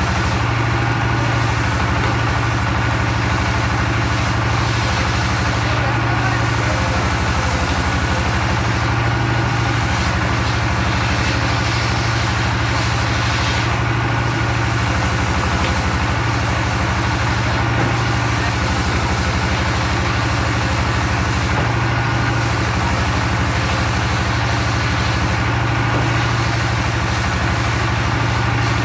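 Circular log saw (serkel) running steadily with its engine, an even hum with no break or change in load.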